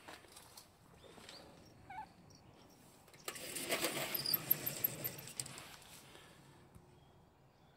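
A cat gives a faint short meow about two seconds in. A little later a sliding door rolls along its track with a rattle for about two seconds, then the sound fades away.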